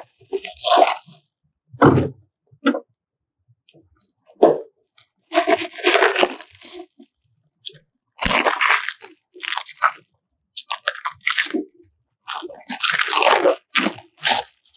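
Plastic protective wrap crinkling as it is pulled off and handled around a roll of DTF transfer film, in irregular rustles with short pauses between.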